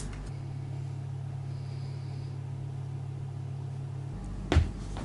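A steady low rumble, then a single sharp drum hit on a kit about four and a half seconds in.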